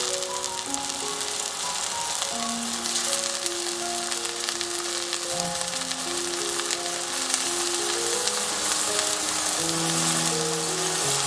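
Food sizzling and crackling as it fries in a pan, with a slow melody of held notes playing over it.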